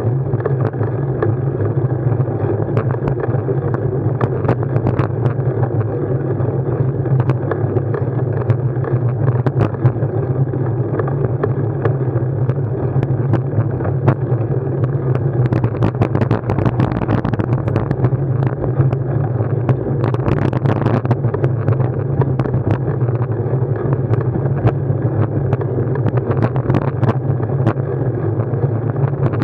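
Steady ride noise from a vehicle, recorded on the action camera: a constant low hum with continual small rattles and clicks and some wind on the microphone. The rattling gets busier around 16 to 21 seconds in.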